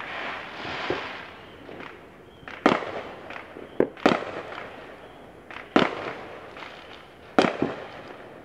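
Neighbourhood fireworks going off: a series of sharp bangs at irregular intervals, about five of them loud and each trailing off briefly, with smaller pops between and a crackling hiss in the first second or so.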